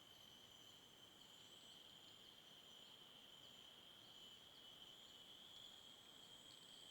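Faint, steady high-pitched insect trilling, with a few tiny chirps over it.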